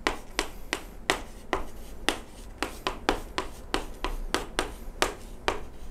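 Chalk tapping and scratching on a chalkboard as an equation is written: an irregular run of sharp clicks, about four or five a second.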